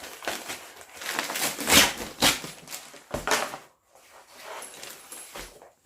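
Packaging rustling and crinkling in irregular bursts as a wrapped item is opened by hand, loudest a little under two seconds in.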